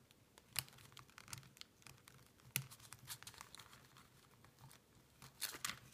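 Faint handling noise of a handmade paper-and-card journal: small clicks from fingers working its metal clasp, with light rustling of paper and card.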